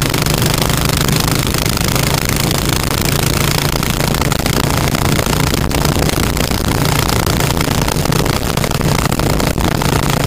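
Yamaha SR500's single-cylinder four-stroke engine running at a steady speed through a Ducati silencer, a fairly loud exhaust note that holds an even pitch, with a constant rush of wind and road noise over it.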